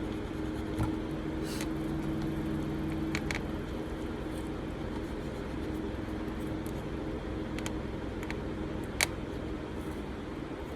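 Steady low background hum with a few faint, sharp clicks and taps of small metal lighter parts being handled, the loudest click about nine seconds in.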